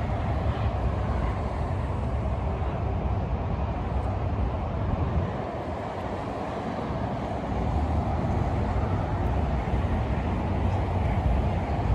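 Steady road traffic noise: a low rumble and hiss with no distinct events.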